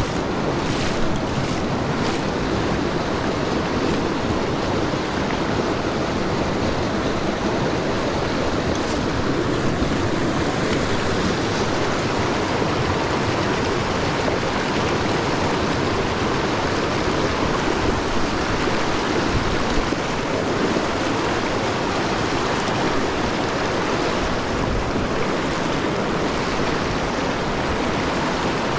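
Small mountain stream rushing steadily, running high and fast after overnight snow.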